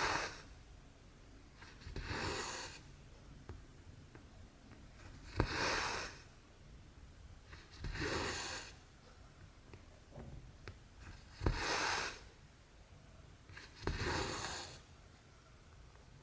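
Cotton embroidery thread being drawn through stamped cross-stitch fabric, stitch after stitch: a short swishing pull about every two to three seconds, six in all, a few starting with a small tick as the needle goes through the cloth.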